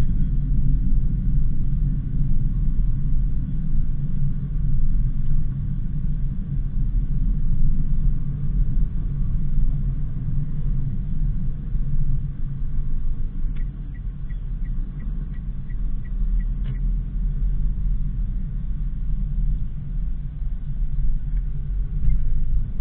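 Daihatsu Sigra on the move: a steady low rumble of engine and road noise. Partway through, a run of light, evenly spaced ticks, about three a second, lasts about three seconds.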